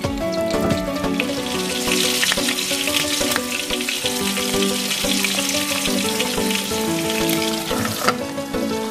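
Whole spatchcocked chicken sizzling as it fries in hot oil in a stainless steel pan, with a single knock near the end as a glass lid is set on the pan. Background music with held notes plays throughout.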